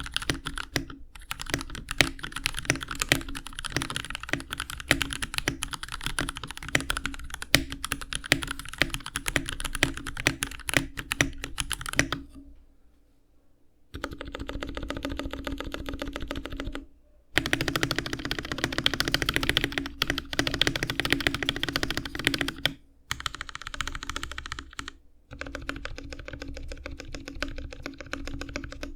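Typing on a GMMK Pro mechanical keyboard with lubed Gateron KS3 Yellow linear switches on an aluminium plate: rapid, continuous key clacks. There is a pause of a second or two near the middle and a few brief breaks later on.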